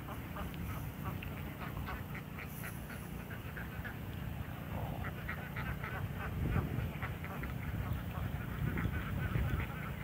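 Water birds calling in runs of short, quick notes, in several bouts, over a low steady rumble.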